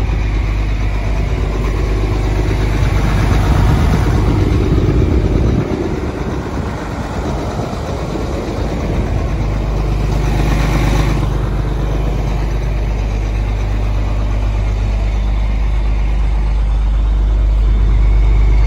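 GMC C7500 truck's Duramax diesel engine idling steadily.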